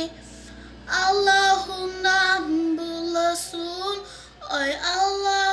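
A woman's high voice singing a Turkish folk tune on held, ornamented notes without clear words, with a short gap at the start and a dip before a note that slides up near the end.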